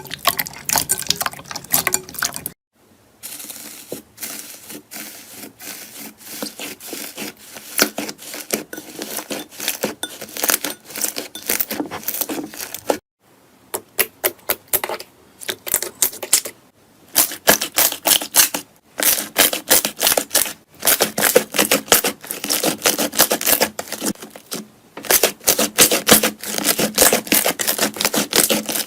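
Slime being squeezed, poked and stretched by hand, making dense rapid crackling clicks and pops. The sound breaks off into brief silences several times.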